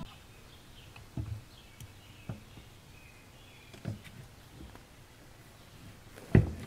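Rifle handling on a wooden workbench: a few faint knocks as the action and stock are moved and settled, then one sharp, louder thump near the end.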